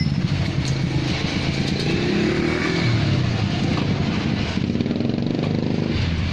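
A small engine running, its pitch rising and falling as the speed changes.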